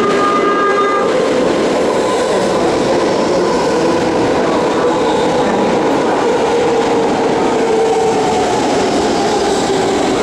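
BART train pulling into an underground platform and stopping. Its whine fades out about a second in as it comes to rest, leaving the steady loud noise of the standing train.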